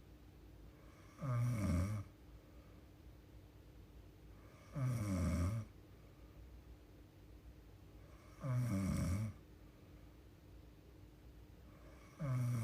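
A young woman snoring in her sleep: three short snores at an even pace, about one every three and a half seconds, each lasting under a second, with a fourth beginning near the end.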